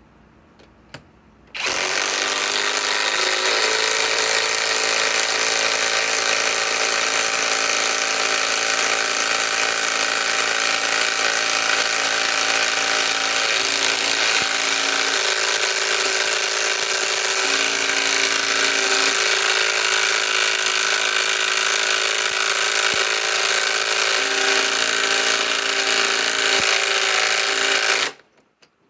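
Kobalt 24-volt right-angle impact wrench running and impacting continuously as it drives a six-inch timber screw into an existing hole. It starts about two seconds in, its pitch sags slightly as it takes up the load, and it stops abruptly near the end.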